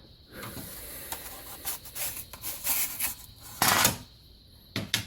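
Rubbing and scraping from hand work on an old hand saw: a run of short uneven strokes, then one louder scrape and a brief knock near the end.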